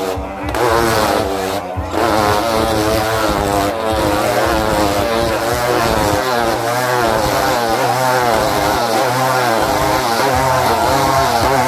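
Several motorcycles riding loops inside a steel mesh globe-of-death sphere, their engines running together with the pitch rising and falling over and over as they circle.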